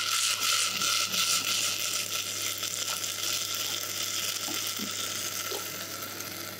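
Finely chopped red chili sizzling in warm olive oil with haricot beans in a pan, a steady hiss loudest at first and slowly dying down.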